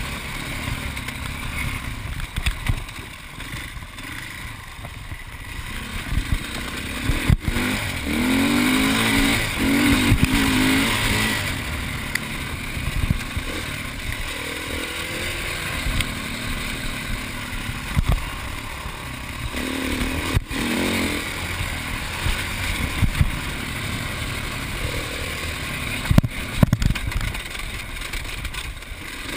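Enduro dirt bike engine pulling hard and revving up and down as the rider shifts and works the throttle, heard from an on-board camera, with a few sharp knocks from the bike over bumps.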